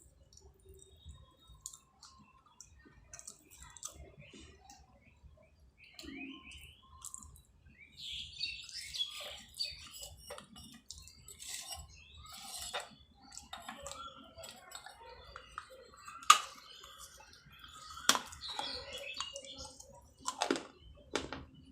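Baked clay pottery being bitten and chewed: a run of dry crunches and crackles, with two sharp snaps, about 16 and 18 seconds in, that are the loudest.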